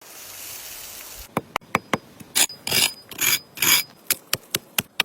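A short steady hiss, then a series of sharp knocks. Four longer scraping bursts fall in the middle.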